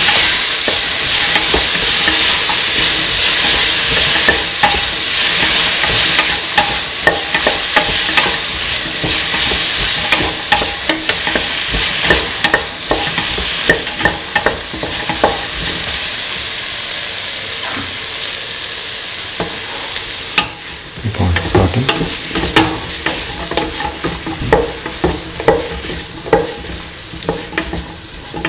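Chopped snake gourd, onion and tomato sizzling in hot oil in a metal pan while being stirred, with frequent clicks and scrapes of the stirring utensil against the pan. The sizzle is loud at first and gradually dies down, leaving the taps and scrapes more distinct toward the end.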